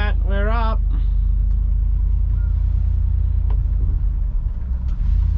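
Johnson 90 two-stroke outboard running steadily under way, a loud low rumble. A high-pitched voice cuts off just under a second in.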